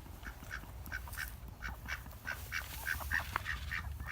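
Ducks quacking: a run of short quacks, several a second, coming thicker toward the end.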